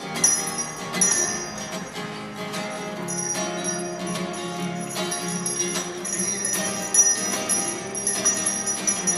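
Hand bells ringing in rapid, repeated strokes, the kind Salvation Army kettle bell-ringers shake, over music whose notes change every few seconds.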